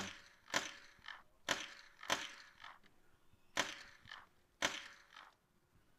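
Six shots from a .22 rimfire mini rifle, fired singly at an uneven pace over about five seconds.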